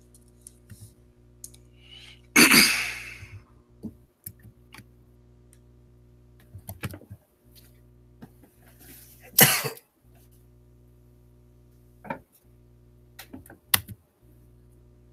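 Two loud coughs or throat clearings, about seven seconds apart; the first is the longer and fades out. Scattered light clicks and a steady low electrical hum run underneath.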